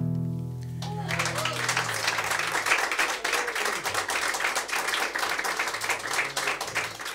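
The song's last guitar chord rings out and fades, and about a second in clapping and applause break out. The applause runs for about six seconds and thins out near the end.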